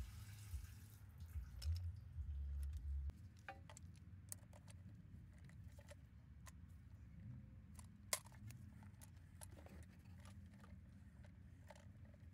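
Gasoline pouring out of the old fuel pump module for about the first second, with dull low thumps of handling over the first three seconds. After that, scattered light clicks and taps as the plastic fuel pump assembly is handled.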